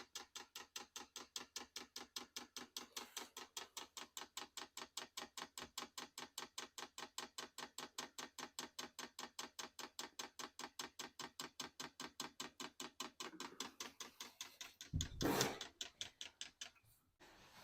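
Diesel heater's electric fuel dosing pump ticking rapidly, about five clicks a second, as it runs in manual priming mode to fill the fuel line. There is a louder thump about fifteen seconds in, and the ticking stops shortly after.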